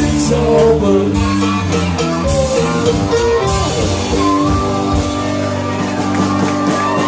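Rock music with guitar and a drum kit playing a steady beat, the drum strokes falling about once a second.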